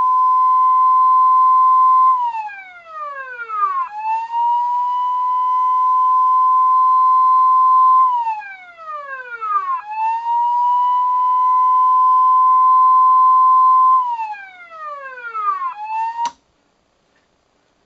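A siren winds up to a steady high wail, holds it for about four seconds, then winds down. This happens three times, and a fourth wind-up cuts off suddenly after half a second.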